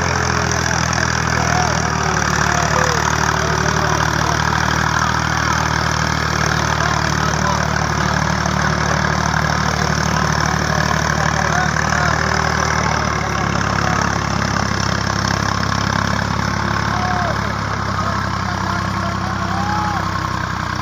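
Diesel farm tractor engine running steadily, its note shifting partway through as the tractor drives.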